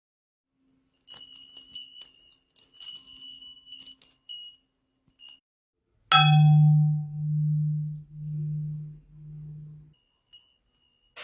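Wind chimes tinkling lightly, then a single deep chime strike whose low hum swells and fades about four times, with faint chime tones returning near the end.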